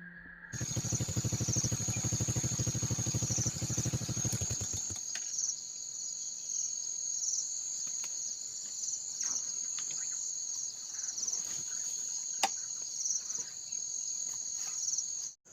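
Steady high-pitched chorus of insects chirring, gently pulsing. A fast low pulsing runs under it for the first four seconds or so, and a single sharp click comes about three-quarters of the way through.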